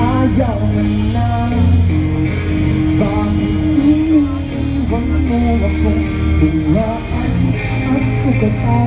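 Live rock band playing, with electric guitar, bass and singing.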